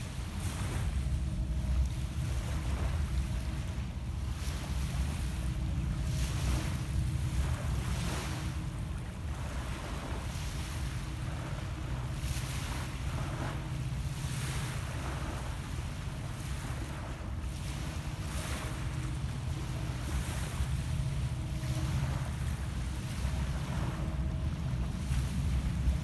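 Small lake waves lapping and washing on a stony shore every couple of seconds, over a steady low rumble of wind on the microphone.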